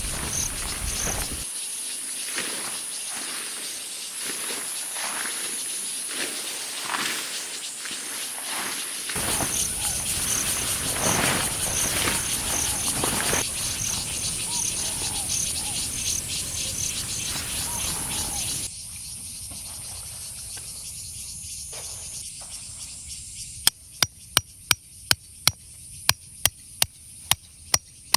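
Night insects chirping steadily in a high, continuous trill. Near the end a run of sharp, evenly spaced clicks starts, about three a second, louder than the insects.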